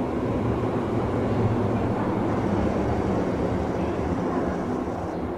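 Kyoto Municipal Subway 20 series electric train running at speed, heard from inside the car: a steady rumble of wheels and motors that swells slightly in the first second or so and eases a little near the end.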